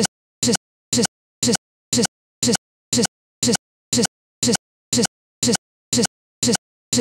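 Digital playback stutter: one short snippet of sound, a fraction of a second long, repeats about twice a second with dead silence between, as the recording hangs on a frozen frame.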